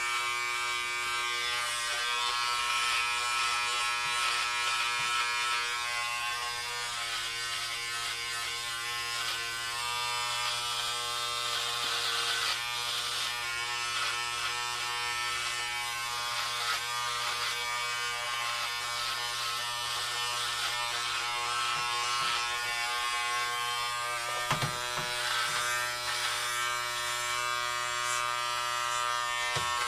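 Electric hair clippers buzzing steadily while cutting hair, a shifting rustle from the blades going through the hair over the motor's hum, with a couple of brief knocks near the end.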